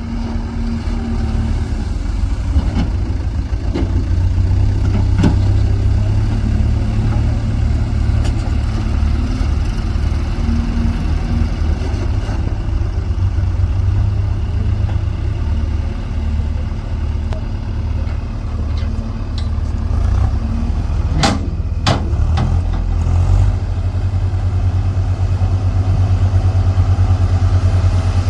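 JCB 3DX backhoe loader's diesel engine running steadily with a deep rumble. A couple of sharp knocks are heard a little over two-thirds of the way through.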